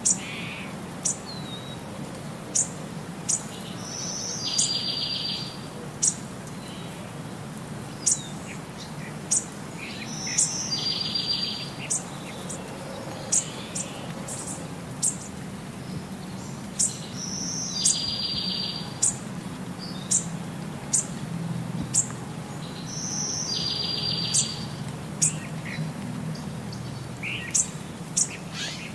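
Bird chirps: short, sharp, high calls about once a second and a buzzy trill every six seconds or so, repeating as a loop over a steady low hum.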